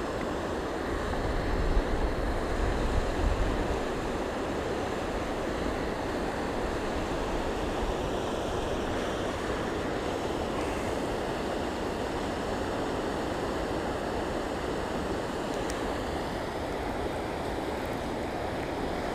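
Flood-swollen river rushing past in a steady wash of water noise, with wind buffeting the microphone during the first few seconds.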